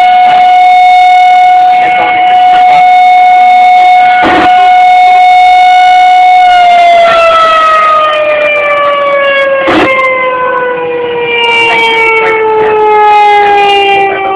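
Rotating outdoor warning siren running on battery backup power: it holds a steady high tone, then about halfway through the pitch starts falling steadily as the siren winds down.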